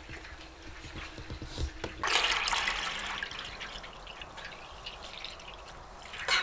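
Grape must pouring in a thick stream from a plastic bucket into a wide metal pan of liquid, splashing and gurgling; the pour swells loudly about two seconds in, then runs on more evenly. A sharp knock near the end.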